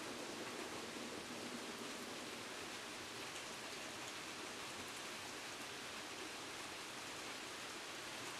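Steady rain falling, an even hiss with a few faint drip ticks.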